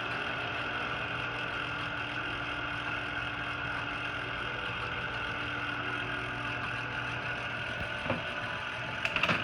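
A motor running steadily with an even hum, with a couple of sharp clicks near the end.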